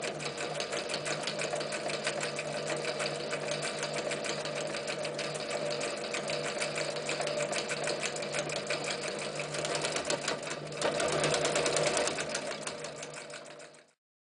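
Necchi Lydia 544 electric sewing machine sewing a zigzag stitch through leather: a steady motor hum under a rapid, even clatter of the needle. It gets louder about eleven seconds in, then fades away near the end.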